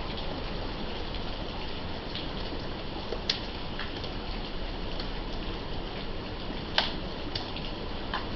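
Steady rain falling, with scattered drops tapping close by; two sharper taps stand out, about three and seven seconds in.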